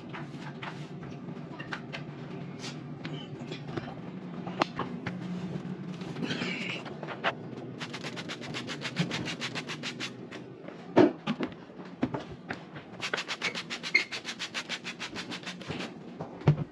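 Cleaning at an electric stove: a trigger spray bottle misting cleaner and quick rhythmic rubbing strokes, in two runs, over a steady low hum, with a sharp knock about 11 seconds in.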